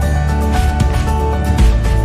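Background music with a steady beat, bass and sustained melodic notes.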